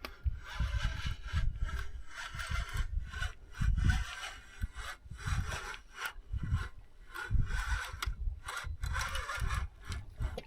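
Fishing reel being cranked to bring in a hooked fish: a rhythmic rasping of short strokes, broken by brief pauses, over irregular low rumbles.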